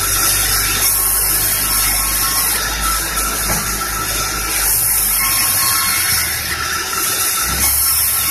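Bandsaw running and ripping medang timber: a loud steady hiss of the blade cutting through the wood over the low hum of the saw's drive, which fades for a moment a little before the end.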